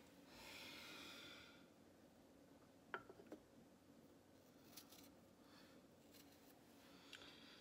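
Near silence with faint kitchen handling sounds: a soft rustle at the start, then a few light clicks, the sharpest about three seconds in, and more around five seconds.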